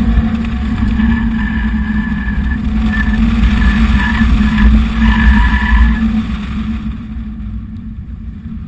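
BMW engine running hard through an autocross course as a steady drone, with tyres squealing in short spells through the corners from about three to six seconds in. The engine note drops away near the end as the car eases off.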